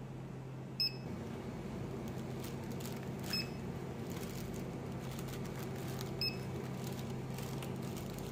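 Barcode scanner at a shop checkout beeping three times, short high beeps about two and a half to three seconds apart, over a steady low hum.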